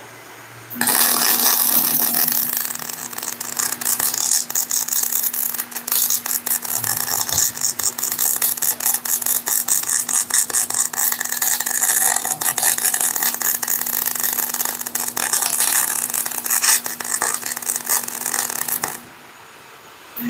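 Arc welding on a steel truck rear axle housing: the arc gives a steady, dense crackle with a low hum under it. It starts about a second in and stops about a second before the end.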